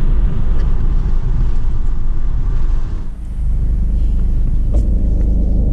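Car cabin noise: a loud, steady low rumble of road and engine noise inside a car, changing character about three seconds in.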